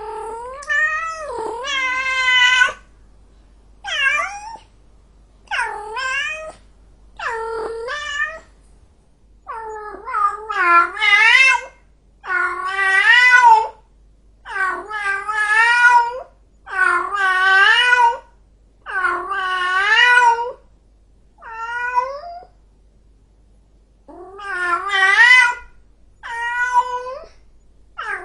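Domestic cat yowling in long, drawn-out meows, about a dozen calls one after another, each with a wavering pitch and lasting up to about two seconds: the calls of an angry cat.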